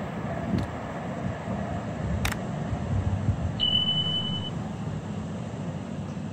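A mouse-click sound effect, then about a second and a half later a short, steady high beep from an animated subscribe button, over a low background rumble.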